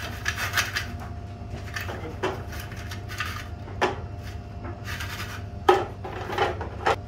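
Plastic basket of a Philips Airfryer XXL, loaded with frozen fries, being handled and set down into its drawer: rubbing scrapes and rattles with several clacks, the loudest about two-thirds of the way through.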